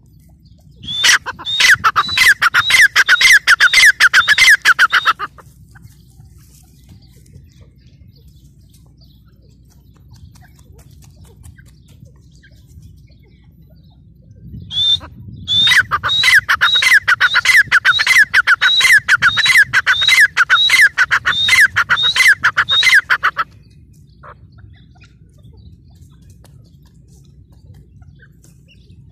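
Grey francolin (teetar) calling loudly at close range: two long bouts of rapidly repeated, ringing notes. The first lasts about four seconds; the second begins near the middle and runs about eight seconds.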